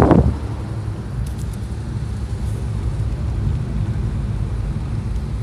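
Steady low rumble of a Porsche 964 Carrera 4 Targa's air-cooled flat-six and its tyres at low speed, heard from inside the cabin; a rush of wind noise dies away in the first moment.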